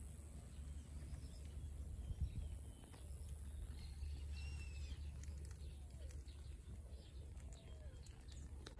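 Quiet outdoor ambience: a steady low rumble, with a few faint high bird chirps about halfway through.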